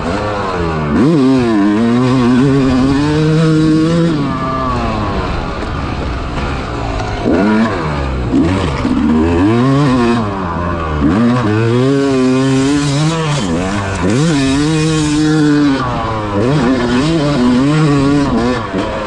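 Yamaha YZ250 two-stroke dirt bike engine heard on board while riding, revving up and falling off over and over as the throttle is opened and shut.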